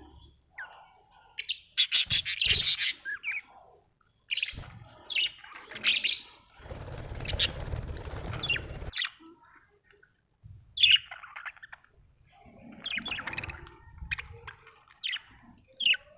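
Budgerigar chirping and chattering in short bursts, with brief pauses between them.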